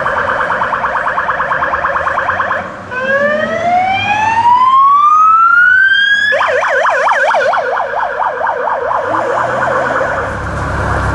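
Police car's electronic siren: a fast yelp, then a slow rising wail for about three seconds, then an abrupt switch back to the fast yelp. Near the end the siren fades and the car's engine and tyre noise rises as it drives past.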